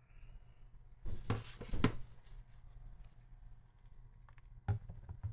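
Handling noise of objects being moved on a hard surface: a brief rustle and clatter about a second in, and a single short knock near the end, over a faint steady low hum.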